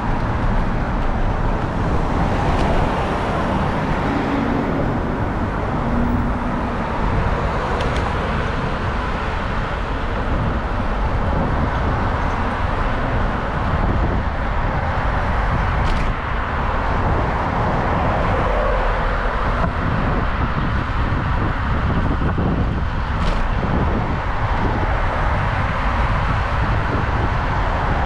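Steady traffic noise of cars on a busy multi-lane road, heard from a moving bicycle, with a constant low rumble under it.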